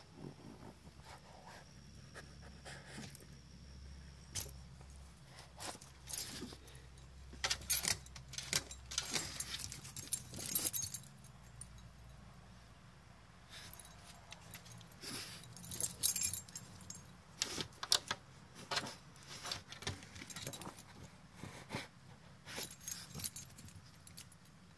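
Dog collar tags and a studded collar jingling in irregular bursts as a French bulldog moves and paws about, with quiet gaps between the bursts.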